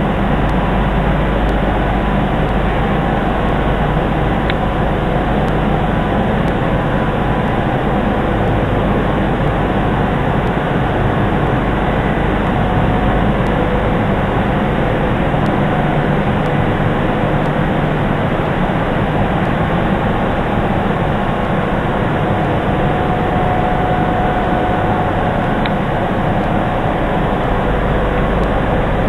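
Leaf spring eye milling machine running steadily: a loud, even machine noise with a faint steady tone or two above it.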